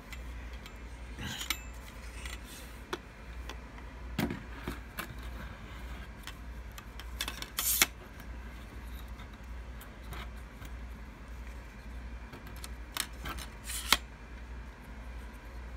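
Metal tripod legs of a Celestron AstroMaster LT 70 AZ telescope being handled, their plastic leg brace and clamps clicking and knocking. The clicks are scattered, the sharpest about 8 seconds in and again near the end.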